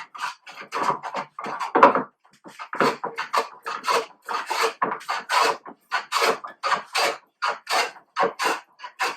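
Low-angle jack plane with a heavily cambered iron shaving a wooden board in quick, short repeated strokes, about two to three a second, with a brief pause about two seconds in. This is rough stock removal to flatten the board.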